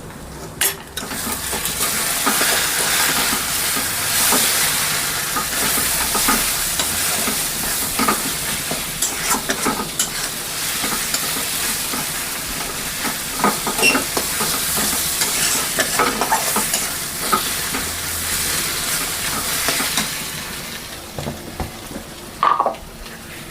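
Spiced masala frying in oil in a pan and being stirred, a steady sizzle with the spoon clicking and scraping against the pan. The sizzle dies down near the end, leaving a few spoon knocks.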